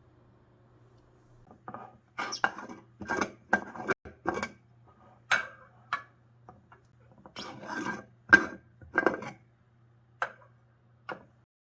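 Kitchen utensils scraping and knocking against dishes in about a dozen irregular strokes, over a faint steady low hum.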